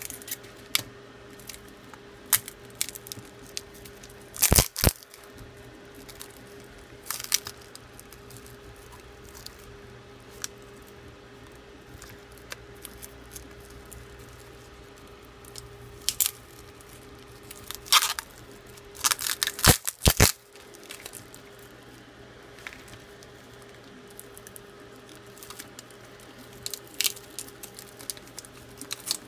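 Sharp cracks, clicks and tearing as a Galaxy S7's glued glass screen and LCD are pried apart with a thin tool, the adhesive giving way. The loudest are a pair of snaps about five seconds in and a cluster of them near twenty seconds.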